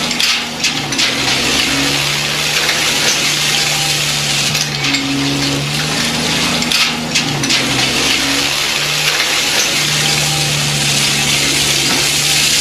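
A radio-controlled model truck's small electric motor and gearing running, an even mechanical hiss with a few light clicks. A low hum switches on and off every second or two.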